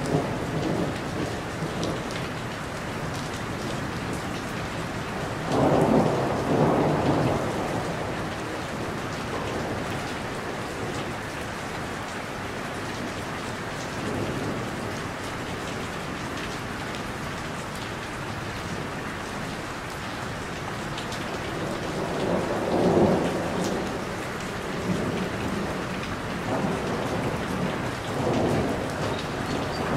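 Steady rainfall with rolls of thunder, rumbling up twice: once about six seconds in and again about two-thirds of the way through.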